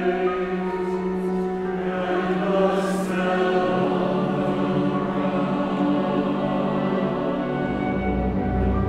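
Mixed chorus and chamber orchestra performing a slow choral piece in sustained chords. Deep bass notes come in near the end.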